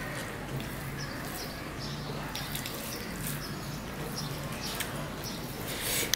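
Close-miked eating sounds: chewing a mouthful of rice and mutton curry, and fingers mixing rice and curry on a steel plate, with soft clicks and a brief louder smack near the end. Birds chirp faintly in the background.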